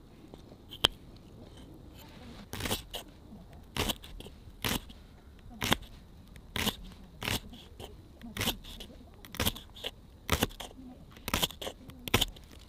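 Knife slicing a leek into rings on a wooden cutting board: a crisp crunch ending in a tap on the board. The cuts come about once a second from a couple of seconds in, after a single click near the start.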